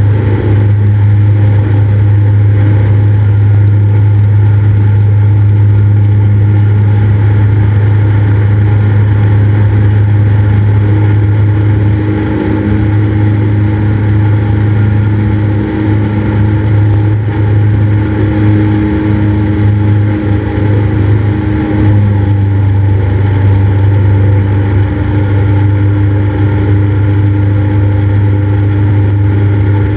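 Cessna 172's piston engine and propeller droning loudly and steadily, easing slightly in the middle before settling back.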